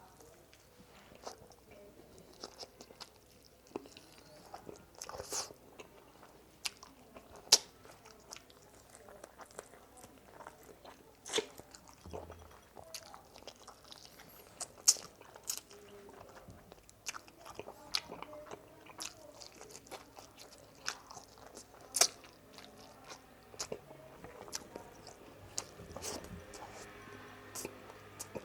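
Close-miked mukbang eating sounds: a person biting and chewing spicy frog legs and fried rice, with irregular sharp wet smacks and clicks every second or so.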